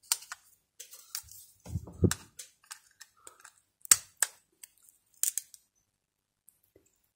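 Snap-off utility knife blade picking and scraping at the edge of a plastic film on an LCD's glass: irregular light clicks and scratches, with a soft handling knock about two seconds in.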